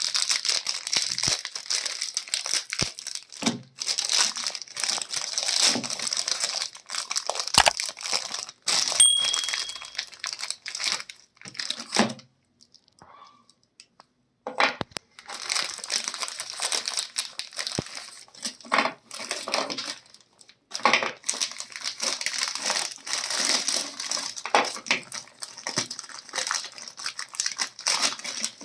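Packaging crinkling and rustling as it is handled, in dense irregular crackles, with a pause of a couple of seconds about halfway through.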